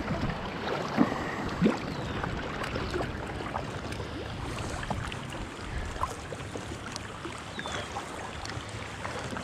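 Double-bladed kayak paddle dipping and splashing, with water rushing and lapping along a folding kayak's hull on choppy river water. Two sharper splashes come about a second and a second and a half in.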